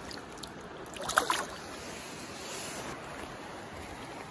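Shallow stream water running steadily, with a brief, loud splash in the water about a second in.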